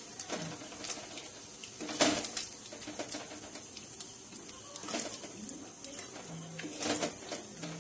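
A metal spatula scraping and clinking against a steel kadai as fried paneer cubes are scooped out of hot oil: a few separate scrapes, the loudest about two seconds in, over a faint steady frying hiss.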